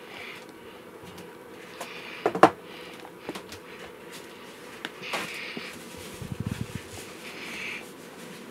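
A metal spoon stirring thick cake batter in a plastic mixing bowl: soft scraping and swishing, with a few sharp knocks of the spoon against the bowl, the loudest about two and a half seconds in.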